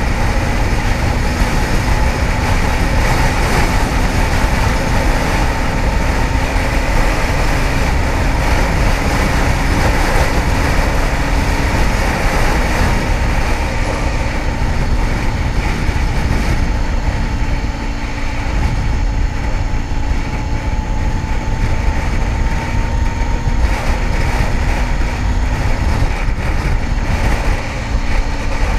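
Kawasaki ZX-10R's inline-four engine running steadily while riding, its pitch drifting only slightly, under a loud rush of wind on the microphone.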